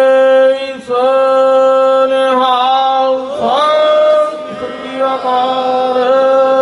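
A man singing a slow, drawn-out devotional melody into a microphone with no instruments, holding long notes and sliding between pitches, with a brief breath about a second in.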